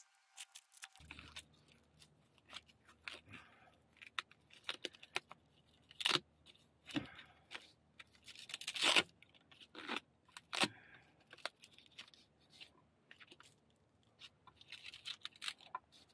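Hands fitting a triangle frame battery in its fabric bag onto an e-bike frame and working its straps: scattered clicks and rustling, with several short rasping rips, the loudest about nine seconds in.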